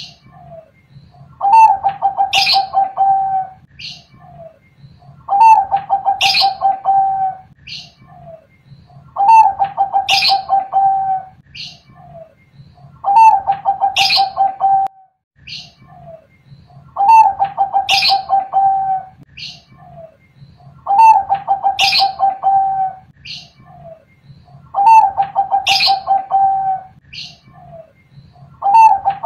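Caged zebra dove of the Thai-bred large-voiced 'Bangkok' line singing its cooing song: a pitched phrase of about two seconds, repeated steadily about every four seconds, with short high notes at the start of each phrase and soft single notes in the gaps.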